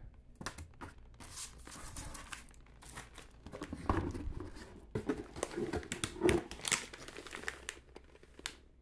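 Packaging crinkling and rustling as it is handled, a run of irregular crackles that stops shortly before the end.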